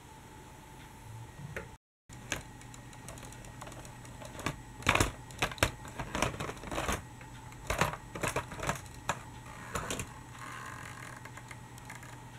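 Irregular dry clicks and knocks of plastic toy vehicles being handled and moved over Lego track, with the sharpest knocks between about four and ten seconds in.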